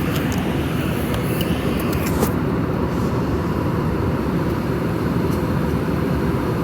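Steady low roar of an airliner cabin in flight, engine and airflow noise, with a few faint clicks in the first couple of seconds.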